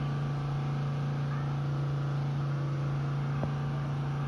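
Steady low machine hum at one constant pitch, with a faint click about three and a half seconds in.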